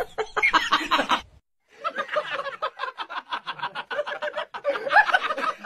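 A person's voice at first, then after a brief break someone snickering in quick, repeated little laughs.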